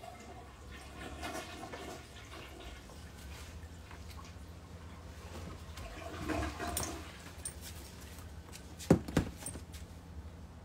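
Rustling and shuffling as clothes and bags are moved about on a closet shelf, with two sharp knocks in quick succession near the end.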